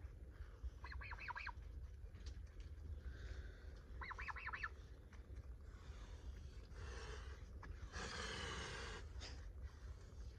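Domestic goose hissing, a breathy hiss lasting a second or two about three-quarters of the way in, with two short runs of quick clucking bird notes earlier, about a second in and about four seconds in.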